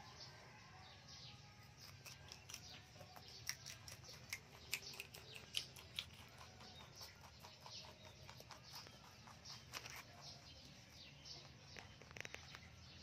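Rabbits chewing and nibbling fresh green leafy stems close up: quiet, quick crisp crunching clicks, busiest a few seconds in.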